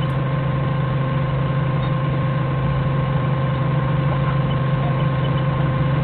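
Forklift engine idling steadily.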